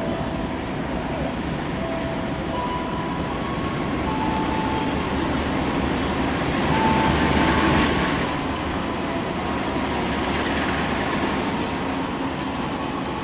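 Diesel-electric locomotive hauling a passenger train slowly through a station: steady engine drone with wheels rolling on the rails, growing loudest about seven to eight seconds in as it passes close. A few brief faint squeals and light ticks sound over it.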